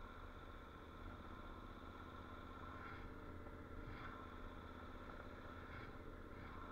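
A faint, steady engine hum, with a few soft ticks about three, four, six and six and a half seconds in.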